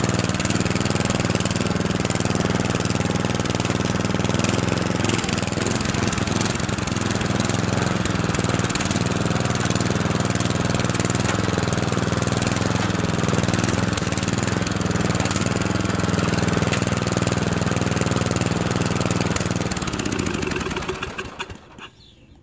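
Ride-on lawnmower engine running steadily, then shut off about twenty seconds in and dying away.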